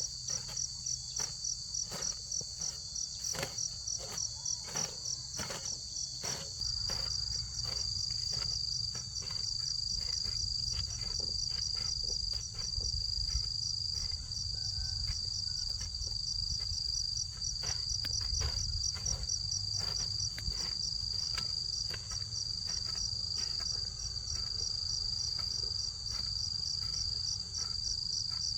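Insects chirping in a steady high chorus, one of them pulsing about twice a second, with scattered clicks and knocks and a low rumble that comes in after about six seconds.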